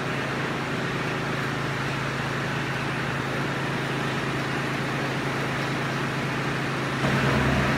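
Steady low mechanical hum, like an engine running, which grows louder about seven seconds in.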